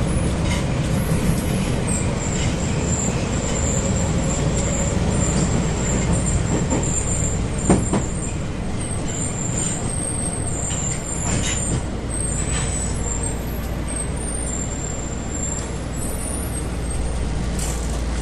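Subway train running, a steady low rumble throughout, with thin high wavering tones from about two seconds in and one sharp knock about eight seconds in.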